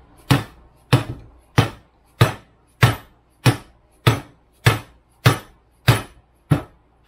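An orange mallet strikes the yoke of a double cardan driveshaft joint clamped in a vise, about eleven even blows a little more than half a second apart, each a sharp knock with a short ring. The blows drive a joint part into place during reassembly.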